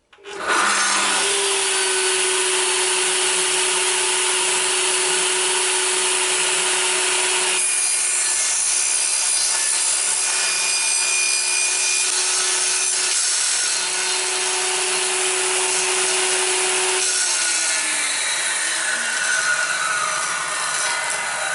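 Bosch PPS 7S table saw starting up suddenly and running steadily while its blade cuts a piece of wood on a crosscut sled. Near the end it is switched off, and a falling whine follows as the blade winds down.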